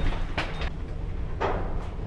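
Elevator running with a steady low hum, and two short clicks about a second apart.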